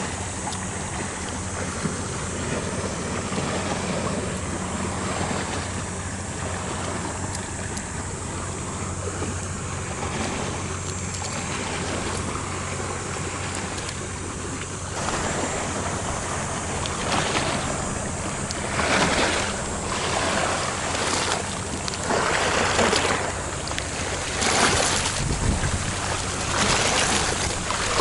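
Sea waves washing in at the shore, a steady wash that from about halfway through swells in repeated surges a second or two apart. A faint steady low hum runs underneath.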